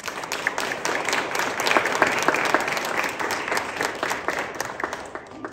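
Audience applauding: many hands clapping in a dense patter that starts suddenly and fades out near the end.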